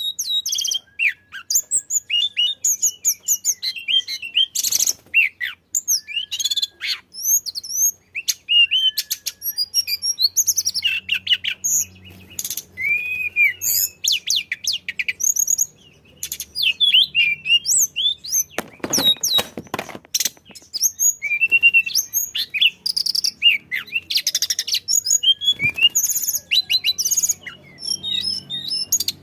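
Tledekan flycatcher singing vigorously: a rapid, varied, almost unbroken run of high chirps, trills and short whistles, the full 'gacor' song used to trigger other birds into singing. A short noisy burst interrupts it about two-thirds of the way through.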